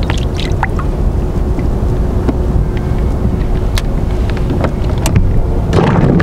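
Wind rumbling on the microphone, with small irregular clicks and slaps of water against a kayak's hull, and a louder rush of water near the end.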